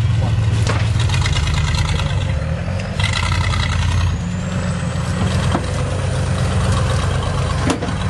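Off-road 4x4 engines running and revving with a heavy low rumble. A faint high whine climbs about three seconds in and then holds, and there are a couple of sharp knocks.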